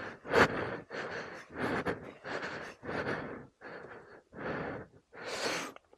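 A person breathing hard and panting, about eight heavy breaths in and out in quick succession.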